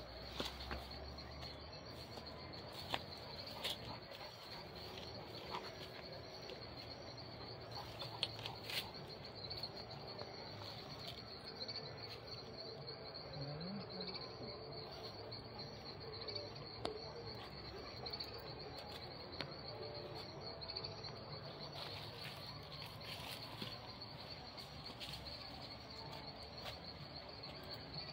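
Insects chirring steadily as one even, high-pitched drone, with a few faint clicks scattered through it.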